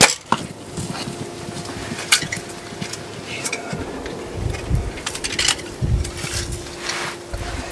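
Scattered rustles and light clicks, like gear being handled, over a steady low hum.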